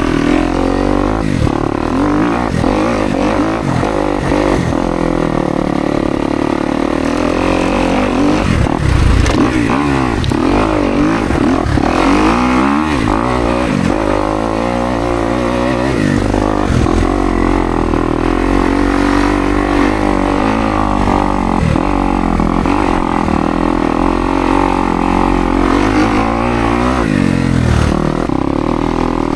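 Kawasaki KX250X single-cylinder four-stroke dirt bike engine being ridden off-road, revving up and dropping back over and over as the throttle is worked.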